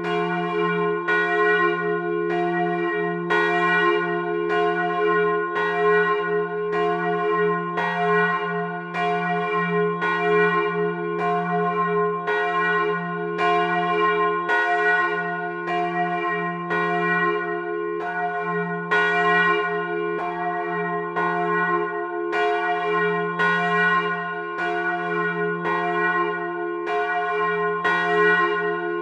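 Bronze church bell swinging, its clapper striking about once a second, each stroke ringing on into the next over a steady low hum. It is heard at close range inside the timber belfry.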